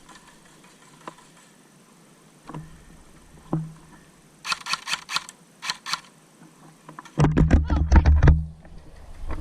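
Two short bursts of rapid airsoft gunfire clicking, a little after the middle, with a few scattered clicks and knocks before them. Near the end there is loud rumbling and bumping of handling or movement against the microphone.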